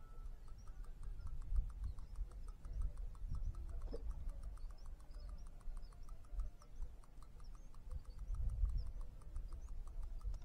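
Wind rumbling and gusting on the microphone, with a faint, steady, rapidly pulsing animal call of several pulses a second in the background and a few faint high bird chirps.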